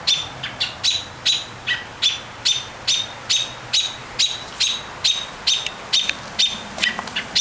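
Small bird giving sharp, evenly repeated alarm calls, about two and a half a second, with a cat holding a bird.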